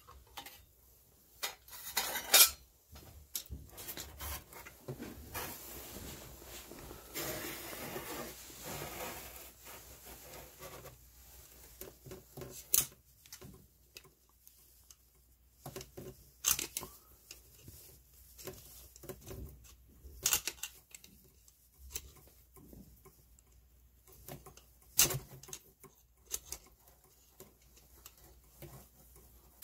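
Hand tools on the metal parts of a furnace draft inducer motor being taken apart: scattered sharp metal clinks and taps, with a few seconds of scraping noise early on in the middle.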